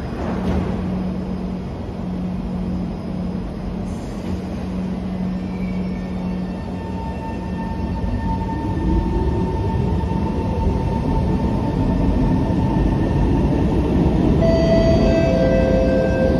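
SMRT C151 metro train humming steadily at the platform, then pulling away from about halfway through, its traction motor whine rising in pitch and growing louder.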